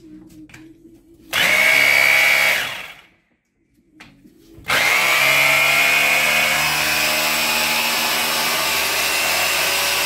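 Zenit Profi rotary hammer (perforator) test-run after servicing. A few light clicks, then a short burst of about a second and a half, a pause, and a longer steady run of about five seconds that winds down at the end; the motor runs smoothly, which the repairer calls excellent.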